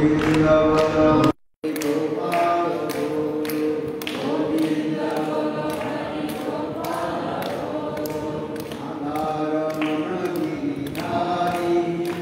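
A group of voices singing a devotional chant together, with short sharp strikes keeping a steady beat. The sound cuts out completely for a moment about a second and a half in.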